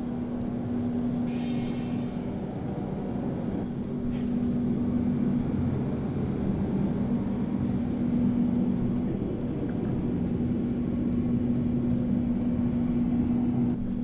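Steady machine hum: one constant low droning tone over an even low rumble, unchanging throughout.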